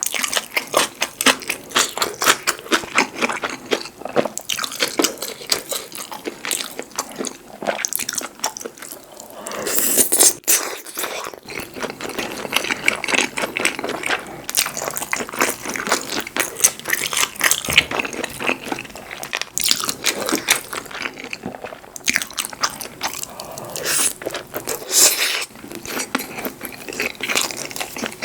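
Close-miked eating: steady chewing and crunching with many quick wet mouth clicks, plus a couple of longer noisy stretches, about ten seconds in and near the end.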